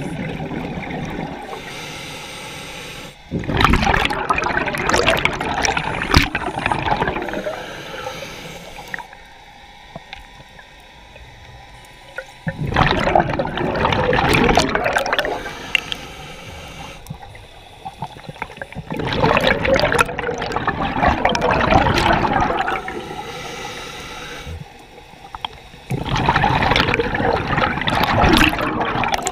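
Scuba diver breathing underwater through a regulator: four long rushes of exhaled bubbles, about every six to seven seconds, with quieter stretches between them.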